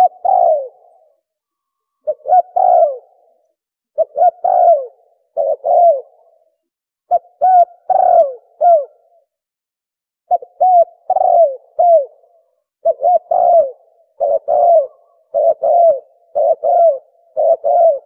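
Spotted doves cooing: repeated short phrases of two to four low, falling coos. After a pause about halfway through, the phrases come closer together and run almost without a break.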